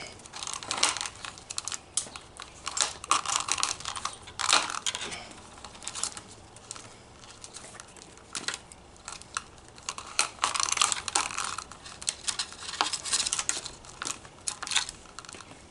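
Trimmer line being pulled and unwound off the plastic spool of a string trimmer's bump head: irregular clicks, rustling and scraping as the nylon line rubs against the spool.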